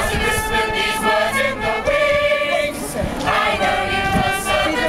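A large mixed company of men and women singing together in chorus, holding long notes; one phrase ends about three seconds in and the next begins.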